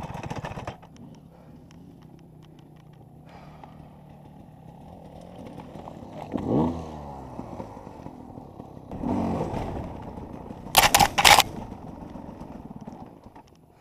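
Enduro motorcycle engine running at low revs, revving up briefly about six and a half seconds in and again around nine seconds. A few sharp, loud clattering knocks come near the end.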